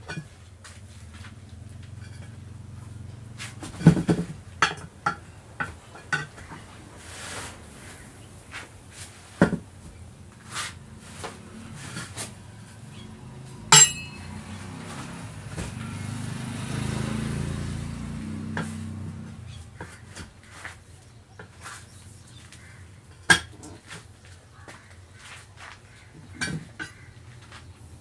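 A steel tyre lever clinking and scraping against a steel wheel rim as an auto-rickshaw tyre's bead is levered onto the rim, in irregular sharp knocks, the loudest about four, nine and a half, fourteen and twenty-three seconds in. A low rumble swells and fades about sixteen to nineteen seconds in.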